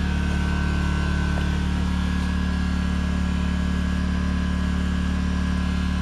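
A generator engine running steadily at constant speed, a low even hum with no change in pace.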